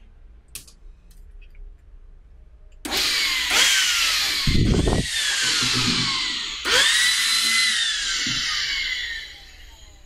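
Makita CL100D 12 V cordless vacuum's motor run twice with its dust cup removed, each run a loud whirring whine. The first starts suddenly and falls in pitch; the second spins up sharply, holds briefly, then winds down as the trigger is released. It sounds strong for a vacuum.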